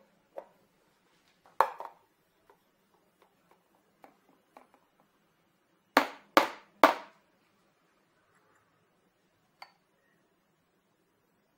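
Three sharp metallic knocks about half a second apart near the middle, with an earlier single knock and a few light clicks: a stainless steel milk pitcher of steamed milk being tapped on a hard surface to settle the milk before pouring.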